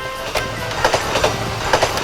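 Plarail battery-powered plastic toy train running on its plastic track: a steady motor hum, with sharp clicks in pairs as the wheels cross the track joints from about a second in.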